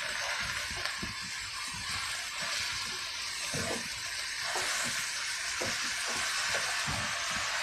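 Red spinach leaves sizzling in hot coconut oil in a two-handled kadai, a steady hiss with the spatula stirring and scraping through them in short knocks.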